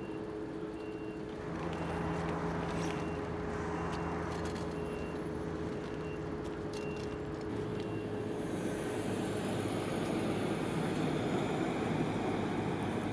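Road traffic by a highway, with heavy trucks: a steady engine hum through the first half, with a faint beep repeating about twice a second. Then the rush of a passing vehicle builds toward the end.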